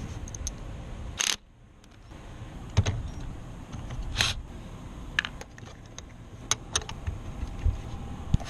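Scattered sharp clicks and knocks, a dozen or so at irregular intervals, over a low rumble, like hand work with tools or parts on a car.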